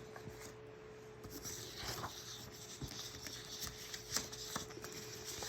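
Thin cardstock sheets being handled and shifted against one another: soft paper rustling with small ticks and taps, starting about a second in.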